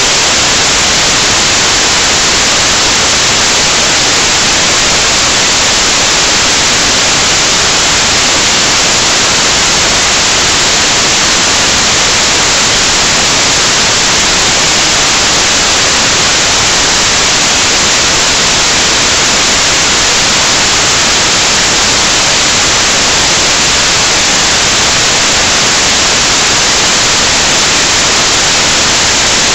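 Loud, steady static hiss with nothing else in it: the noise of a recording whose audio feed has dropped out.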